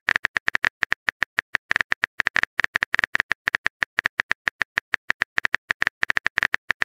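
Rapid, even run of short high-pitched electronic blips, about nine a second, like the text-scroll sound effect used for on-screen dialogue.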